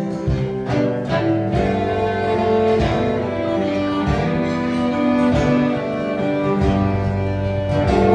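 Instrumental break in a live country song: a fiddle playing the melody over a guitar keeping a steady strummed rhythm.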